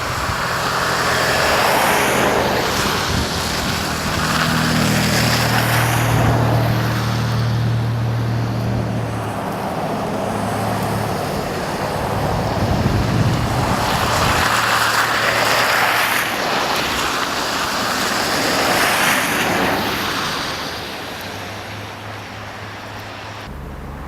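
Several vehicles passing one after another, tyre noise swelling and fading with each pass, with a low engine hum from one of them a few seconds in.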